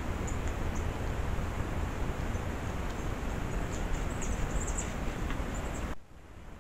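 Steady low rumble and hiss of outdoor background noise on a trail-camera recording, with faint high ticks and chirps scattered through it. About six seconds in, it drops abruptly to a much quieter background.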